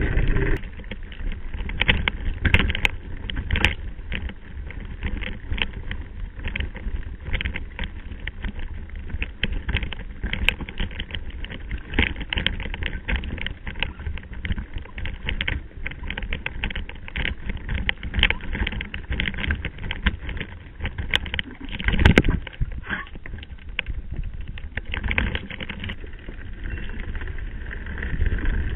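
Mountain bike riding over a rough, stony dirt track, heard from the rider's camera: a steady clatter of rattles and knocks from the bike jolting over loose stones, over a low rumble of tyres and wind. One heavier jolt comes about three quarters of the way through.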